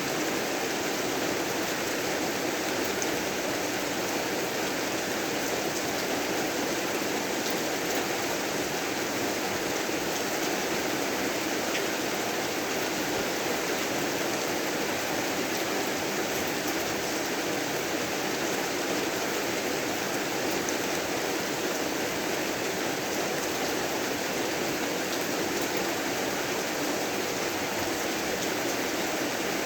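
Steady heavy rain falling, an even hiss with faint scattered drop ticks that holds the same level throughout.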